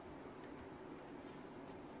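Quiet room tone: a faint, steady hiss with no distinct sounds.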